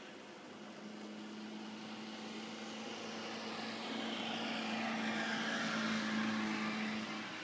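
Engine hum of a passing vehicle, growing steadily louder, loudest near the end, then starting to fade.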